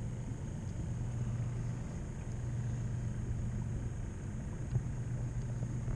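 Steady low machine hum with a faint, steady high whine above it, and one light knock near the end.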